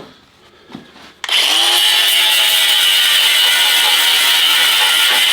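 A handheld electric power tool starts about a second in, winds up quickly and runs on steadily and loudly, cutting into the car body's sheet steel.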